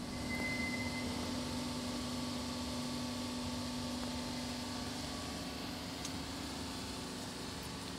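Thermo King clip-on diesel generator set running steadily: an even mechanical rush with a faint constant hum.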